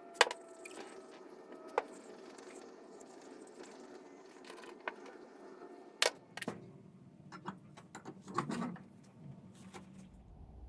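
Light metallic clinks and taps of small metal parts and tools being handled, a few separate strikes, then a brief cluster of clatter about eight seconds in.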